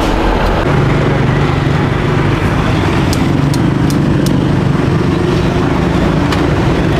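Steady street traffic with an engine humming steadily, and a few sharp clicks of kitchen scissors snipping steamed rice rolls about three to four seconds in.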